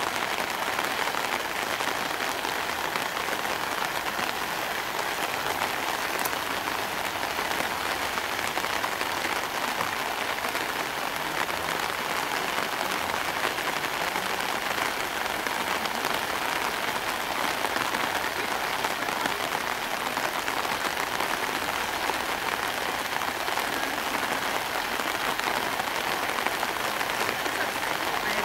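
Rain falling steadily onto floodwater standing in a street: an even, unbroken hiss of drops hitting the water's surface.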